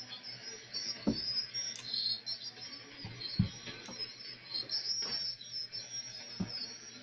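Radio receiver static: a steady hiss with fluttering, chirping high-pitched interference over a low hum, broken by a few sharp pops.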